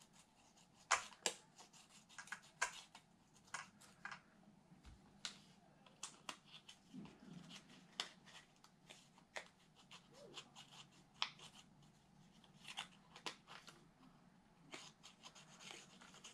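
Faint, irregular clicks and light taps of hand work on an Arrma Kraton's rear suspension: a thin metal gauge slid and tapped between the plastic lower control arm and the differential cup while the arm is moved, checking the clearance where the arm hits the diff.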